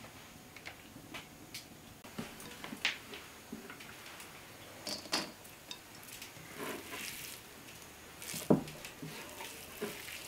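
Raw ground beef being handled by hand on a wooden cutting board and put into an earthenware bowl: soft scattered squishes and taps, with one louder thump late on.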